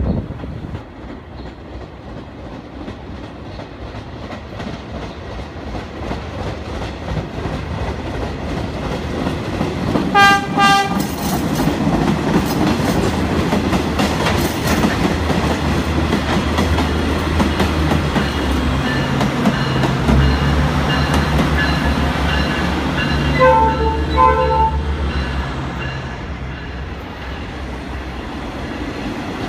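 R156 diesel locomotives, MPI MP8AC-3s, hauling a ballast work train past. The horn sounds in a quick run of short blasts about a third of the way in and in two more pairs of blasts about three quarters in. Underneath is a heavy diesel engine drone that builds as the locomotives come close, with wheels clicking over the rail joints and a rapidly repeating electronic bell.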